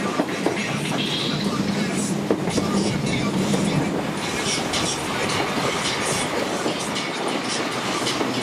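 ALe 801/940 electric multiple unit running along the track, heard from an open window: steady running and wind noise with scattered clicks of the wheels over the rails. A steady low hum runs under it and fades about four seconds in.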